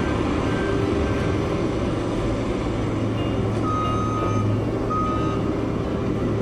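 Excavator's diesel engine running with a steady low rumble, and two reversing-alarm beeps about four and five seconds in.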